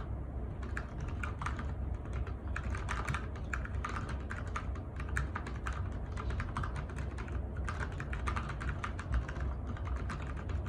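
Typing on a mechanical keyboard with lubed silent linear switches (silent Gateron black stems): a fast, irregular run of soft, muted keystrokes with a few brief pauses.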